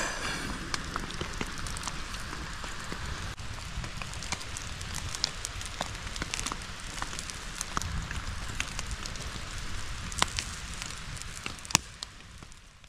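Wood fire crackling with sharp scattered pops over a steady hiss, with rain pattering, fading out near the end.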